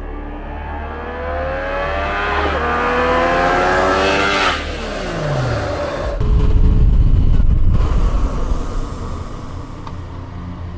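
Yamaha MT-09's three-cylinder engine accelerating under way, its pitch climbing in two rising sweeps, then falling sharply about four seconds in. A loud low rumble follows for about two seconds, then the engine runs steadier and quieter.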